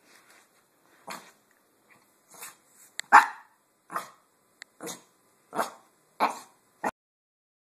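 Small dog barking in play, about eight short barks roughly every second, the loudest about three seconds in.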